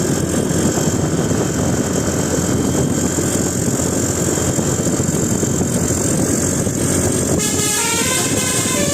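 A loud, steady rumble of a bus and traffic, then about seven seconds in a bus's telolet horn starts playing a quick tune of stepped notes. The horn is a multi-trumpet musical horn.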